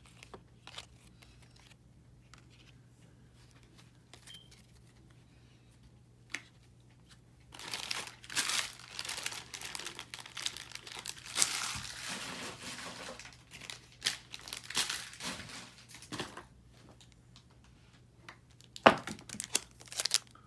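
Hockey card booster pack wrapper being torn open and crinkled. After several seconds of near quiet with a few light clicks, the crinkling starts about a third of the way in and goes on for about nine seconds. A sharp click and more crinkling come near the end.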